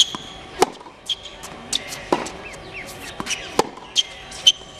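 Tennis rally on a hard court: a string of sharp pops as rackets strike the ball and the ball bounces, irregularly spaced, the loudest right at the start.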